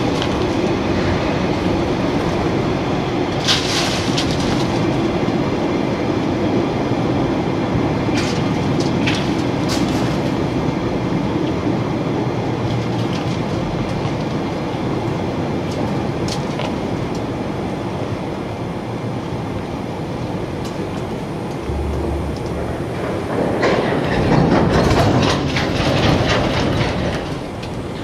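Freight wagons of an aggregate train rolling past at speed: a steady rumble with wheel clatter over the rails and brief high squeals, growing louder for a few seconds near the end.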